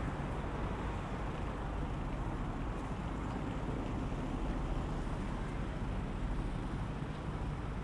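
Steady city traffic noise: a low, even engine rumble from vehicles idling at a red light, including the black cab just ahead.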